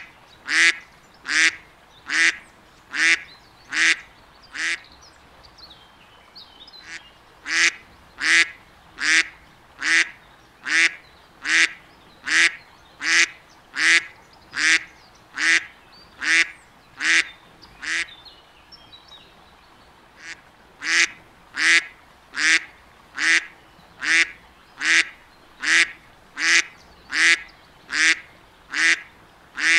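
A duck quacking over and over at an even pace, a little more than one loud quack a second, pausing twice for about two seconds.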